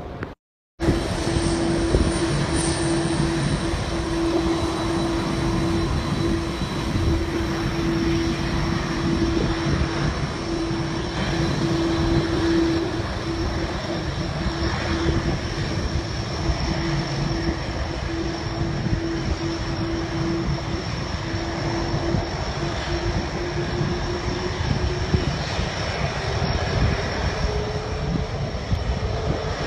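Jet engines of a twin-engine widebody airliner running as it rolls along the runway after landing. The noise is loud and steady, with a drone tone that rises a little in pitch near the end. There is a brief dropout right at the start.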